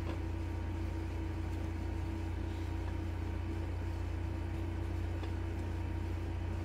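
Steady low machine hum with a faint constant tone above it, unchanging throughout.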